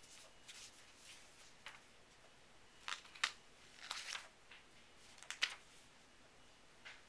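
Textbook pages rustling and crinkling as a kitten paws and bats at them: a string of short paper rustles, the loudest about three seconds in and again near five and a half.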